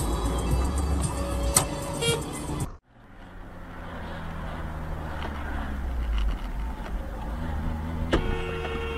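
Car driving, heard from inside the cabin: steady low engine and road rumble. The sound cuts out abruptly about three seconds in and resumes as another car's cabin drone. Near the end a click is followed by a steady two-note tone.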